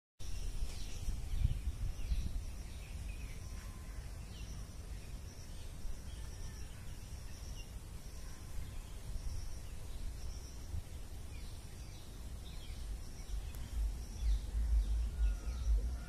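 Woodland ambience: birds chirping, with one high call repeated over and over, over a low rumble of wind on the microphone that grows louder near the end.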